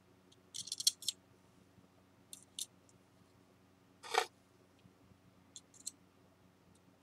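Metal spatula scraping against a small spatula as lacquer-and-flour paste is wiped off and worked: a cluster of short scrapes about half a second in, two more a little later, a longer, fuller scrape about four seconds in, and a few light clicks near the end.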